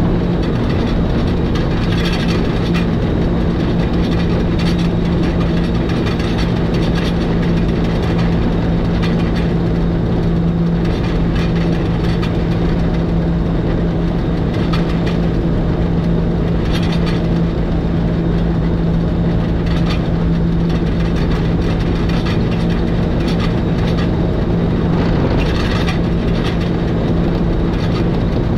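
Electric rack-railway train of the Schynige Platte Railway running steadily downhill, heard from the driver's cab: a constant hum from the drive over a low rumble, with occasional clicks from the wheels and track.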